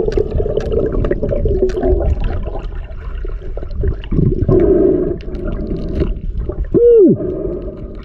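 Water swirling and gurgling with scattered clicks, as heard under water, and a short tone that rises and falls about seven seconds in.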